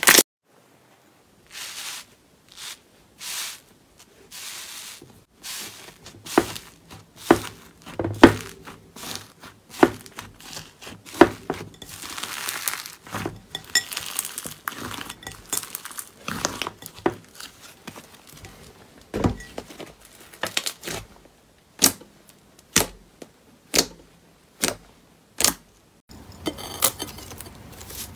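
Hands squeezing and kneading slime: irregular sticky crackles and sharp pops of trapped air bursting, with quiet gaps between. Near the end a denser, steadier crunching sets in as a foam-bead slime is squeezed.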